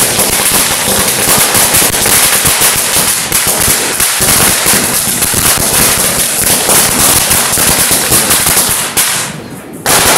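A long string of firecrackers going off on the road in a rapid, unbroken stream of sharp bangs. It dips briefly near the end before going off loud again.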